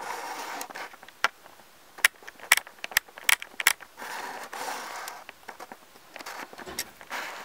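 Dry wood-chip bedding rustling and crackling close to the microphone as an Odontolabis alces stag beetle pushes up through it, with sharp scattered clicks of chips and claws. The rustling comes in spells near the start, about four seconds in and near the end, with most of the clicks in between.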